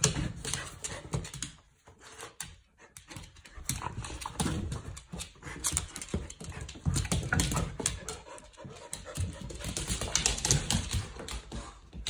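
Two dogs play-fighting on a hard floor: bodies scuffling and claws clicking and scrabbling in quick, irregular runs.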